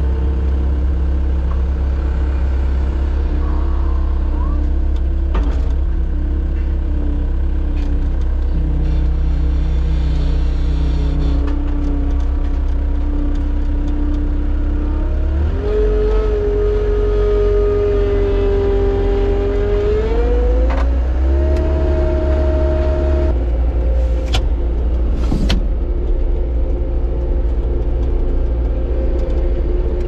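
Bobcat skid steer's diesel engine running. Its speed steps up about halfway through and again a few seconds later, then settles a little lower, with a couple of sharp knocks near the end.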